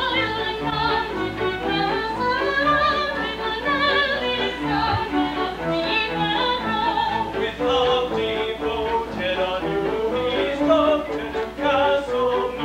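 Operetta ensemble singing, soloists and chorus together, accompanied by a small pit orchestra. A high voice sweeps up and back down early on over the ensemble.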